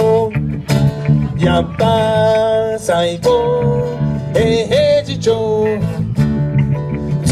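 Live reggae band playing: strummed acoustic guitar and bass under a melody of long held notes.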